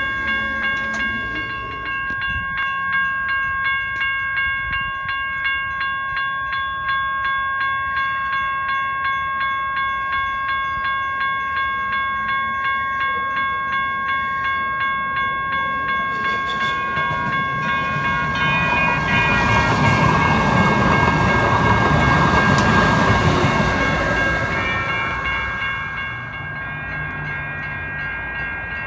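Railroad grade-crossing warning bell ringing steadily in quick regular strokes while the gates are down. Past the middle, a passing train's rushing noise swells to the loudest point and then fades.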